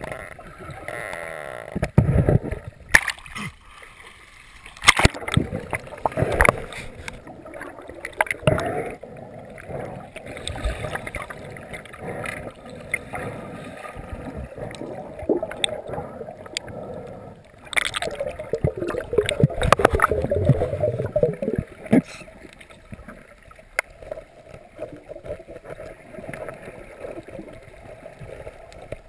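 Muffled underwater sound heard through a waterproof camera housing: water gurgling and rushing, with irregular knocks and clicks, and a louder churning stretch of a few seconds about two-thirds of the way through.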